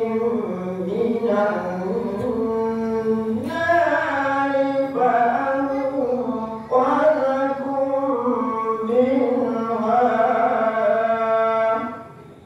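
A man's high voice reciting the Quran in a melodious chanting style, with long held notes that turn and bend in pitch. The recitation stops near the end.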